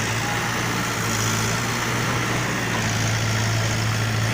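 Bulldozer engine running steadily at a constant low hum, with no crashes or impacts.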